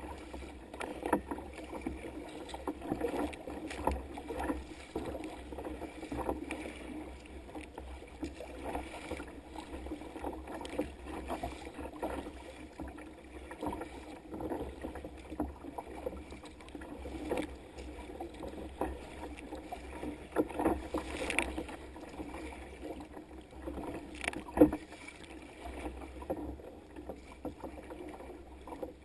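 Choppy sea water slapping and splashing against the bow of a sea kayak as it moves through waves. There are frequent irregular slaps over a steady wash, and one sharper, louder splash about three-quarters of the way through.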